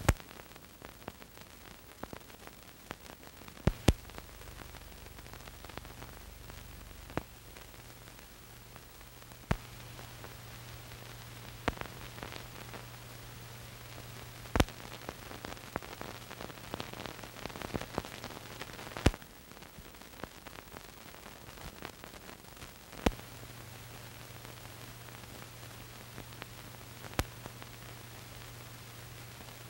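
Old film soundtrack noise: a steady hiss with about a dozen sharp, irregularly spaced pops and clicks. A low hum comes in about four seconds in, drops out about two-thirds of the way through, and returns. No machine-gun or mortar fire is heard.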